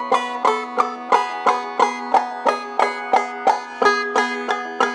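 Banjo played clawhammer style in a steady rhythm of about three sharp strokes a second over a ringing drone note, with percussive 'cluck' downstrokes struck over the head.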